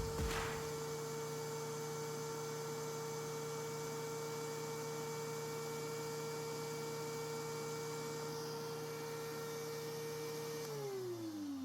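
DeWalt DW735 planer running empty on a test run with freshly fitted drive rollers, a steady motor whine after a brief click at the start. Near the end it is switched off, and the whine falls in pitch as the motor and cutterhead wind down.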